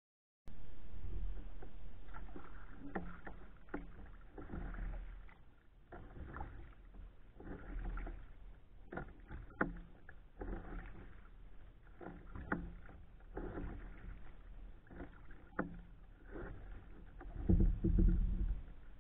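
Kayak paddle strokes through calm water, a splash with light knocks about every second and a half. A louder low rumble comes near the end.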